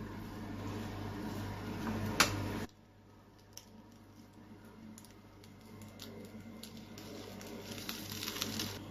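A spoon spreading pizza sauce over a pan-toasted bread base, soft squishing and scraping with a few light taps. A steady low hum runs underneath and cuts off abruptly about a third of the way in.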